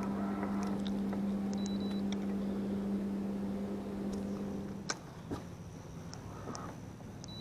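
Electric trolling motor on a fishing boat humming steadily, then switching off about five seconds in, followed by a couple of sharp knocks.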